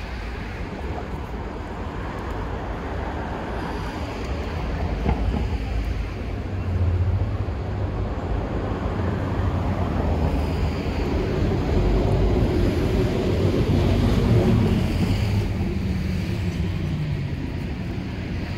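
Steady low rumble of vehicle traffic, swelling for a few seconds about two-thirds of the way through.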